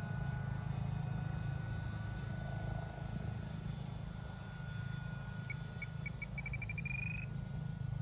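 Low wind rumble on the microphone, with a faint steady high whine from the distant RC Cessna 182 in flight. Past the middle, a short chirping call whose notes quicken and rise a little in pitch.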